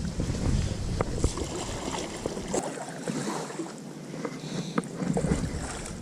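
Wind gusting over the microphone with a low rumble that comes and goes, over water sounds and scattered small knocks around a kayak.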